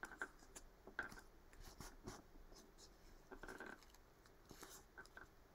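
Faint rustling and light scattered taps of a graph-paper net being folded and creased by hand against a desk.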